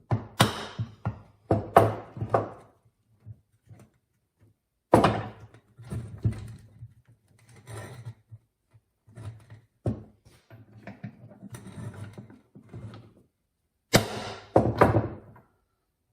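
Irregular knocks and clunks with scraping and rattling of metal parts as the snowblower gearbox's drive chain and sprocket are worked out of the casing; the loudest knocks come in clusters near the start, around five seconds, and near the end.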